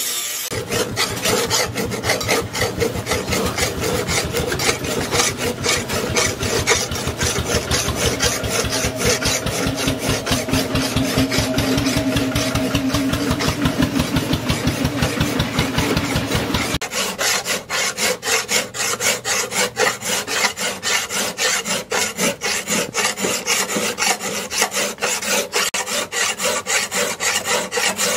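Rapid back-and-forth scraping strokes of hand tooling on the steel machete blade as it is sharpened, several strokes a second. A low steady hum underneath stops suddenly about two-thirds of the way through, while the strokes carry on.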